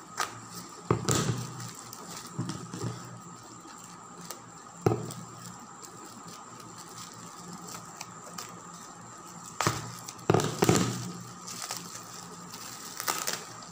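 Scissors snipping into a bubble-wrap package and the plastic crinkling as it is handled: a few sharp crackles, the loudest about a second in and again around ten seconds in, with quieter rustling between and a faint steady whine behind.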